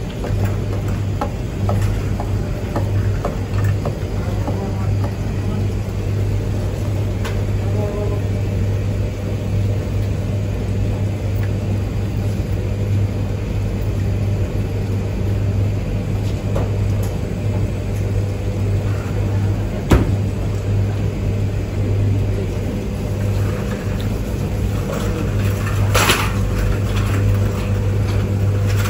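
Steady low hum of laundromat machines running, with scattered light clicks and knocks as clothes are pulled from the dryer drums. One sharp knock comes about twenty seconds in, and a brief clatter follows a few seconds later.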